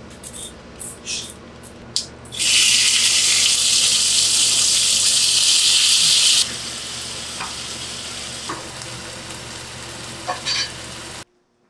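Food frying in a hot pan. A few crackles come first, then a loud sizzle sets in about two and a half seconds in and settles to a quieter steady sizzle with occasional pops after about six and a half seconds, cutting off abruptly near the end.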